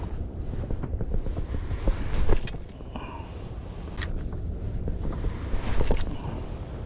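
Wind buffeting the microphone in a steady low rumble, with a few sharp clicks and knocks as a spinning rod and reel are handled; the sharpest click comes about four seconds in.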